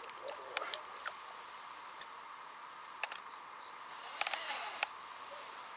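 Scattered sharp clicks and taps of fishing tackle being handled by hand, with a small cluster of quick clicks about four seconds in, over a faint steady hum.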